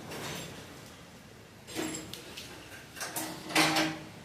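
Metal engine parts scraping and sliding against each other during top-end teardown, in two short scrapes: a brief one about two seconds in and a longer, louder one near the end.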